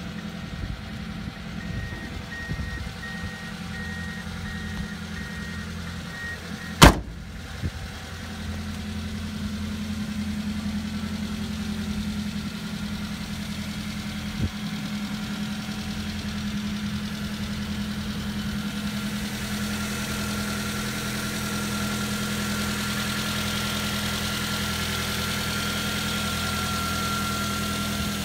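Subaru Sambar kei truck's 660 cc four-cylinder engine idling steadily. A faint evenly repeating beep runs until a single sharp clack about seven seconds in. The engine then sounds louder, and clearer still from about twenty seconds in, as the engine hatch in the bed stands open.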